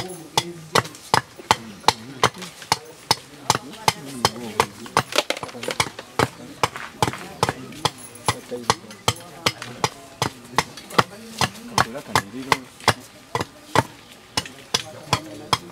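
Small hatchet chopping and chipping wood from a wooden akadinda key in quick, regular strokes, about two or three a second, as the key is shaped. Faint voices murmur in the background.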